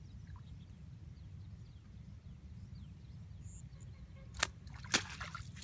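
Two sharp clicks or knocks about half a second apart near the end, over a low steady rumble.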